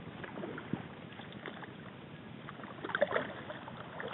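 Kayak paddle working the water: small splashes and drips off the blade and water lapping at the hull, with a louder splashing about three seconds in.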